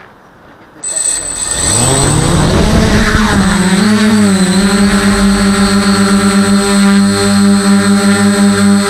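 DJI F450 quadcopter's brushless motors and propellers, heard from the craft itself. After a quiet first second they spin up with a rising whine as the drone lifts off, then settle into a steady buzzing hum as it flies.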